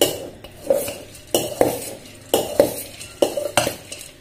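A metal spoon stirring and tossing a dry puffed-rice bhel mixture in a stainless-steel pot. The spoon clinks and scrapes against the pot in regular strokes, about two a second.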